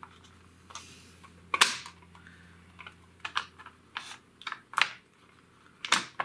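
Irregular plastic clicks and taps as the top half of a VHS cassette shell is laid onto the base and pressed into place by hand. About eight clicks, the loudest a little over a second and a half in.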